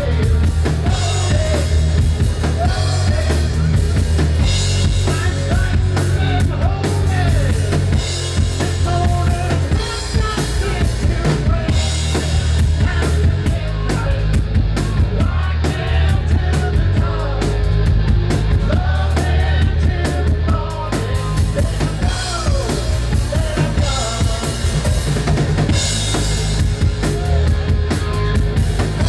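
Live rock band playing loudly: drum kit with bass drum, snare and cymbals driving a steady beat under electric guitars and bass.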